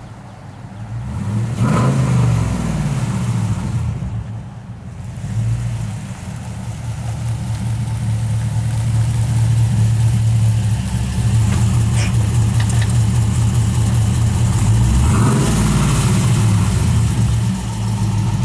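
V8 muscle car with an aftermarket exhaust running under throttle: the engine note swells and falls about two seconds in and again near the end, with a long steady, loud stretch of deep exhaust drone between.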